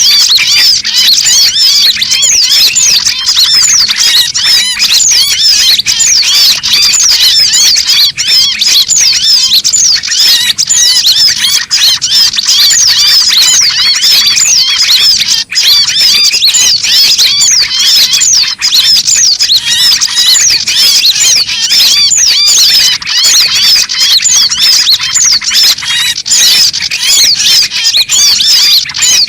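A bird-lure recording of many small songbirds calling at once: a dense chatter of quick, high chirps overlapping without a break.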